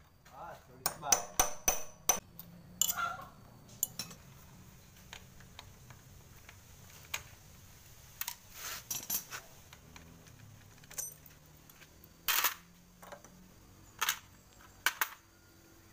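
Metal tools and engine parts clinking and knocking in short separate bursts during hand work on the cam chain and sprockets of a Honda Grand/Supra motorcycle engine, with a few louder sharp knocks near the end.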